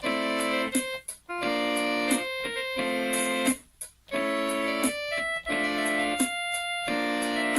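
A 32-key mini keyboard playing a melody over chords in short phrases of about a second each, with a brief break about halfway through.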